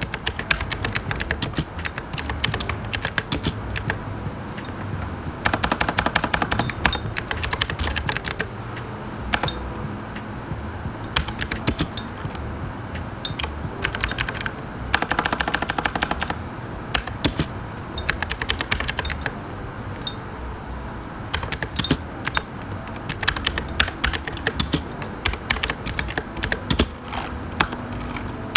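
Typing on an Armageddon MKA-3C hot-swap mechanical keyboard: sharp key clicks, with two fast runs of rapid keystrokes about five and fifteen seconds in and scattered single keypresses between.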